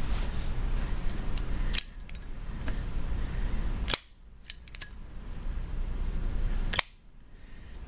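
A handful of sharp clicks, about five, spread over several seconds over a low steady background noise. The background drops away suddenly after two of the clicks and then slowly returns.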